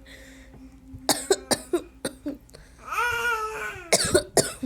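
A woman with a cold coughing: a cluster of coughs about a second in and another near the end, with a short high-pitched babbling voice between them.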